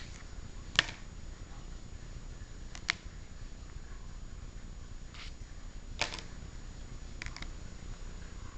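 Hard plastic trading-card holders clicking as they are handled and set down on a wooden table: about six sharp clicks, some in quick pairs, over a steady low background hum.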